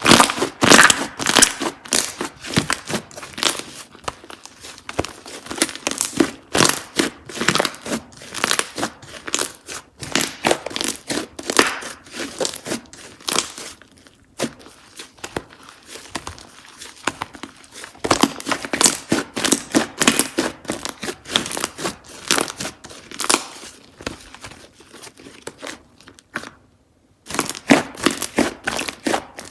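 Slime being squished, stretched and pressed by hand, making a dense run of crackling clicks and sharp pops as air pockets burst. It stops briefly near the end, then resumes.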